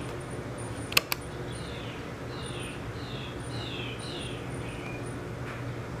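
The hardware on/off switch of an SK-8 touch wall switch clicking, a sharp double click about a second in, as the switch is cycled to reset the unresponsive touchpad. Repeated short high chirps sliding downward sound throughout.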